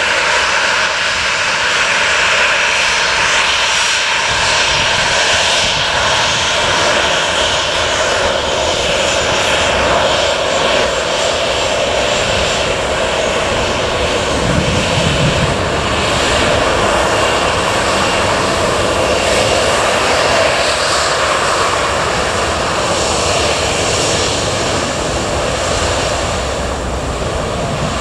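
Jet engines of a Boeing 737-800 airliner running steadily as it taxies, a loud, even whine-and-rush with faint steady tones in it.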